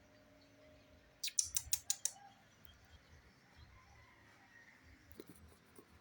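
A quick run of about six sharp clicks or taps a little over a second in, over a faint quiet background.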